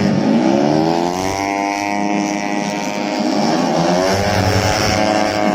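Small-displacement racing motorcycle engines at high revs, their note climbing in pitch as they accelerate, then dipping and climbing again about three seconds in.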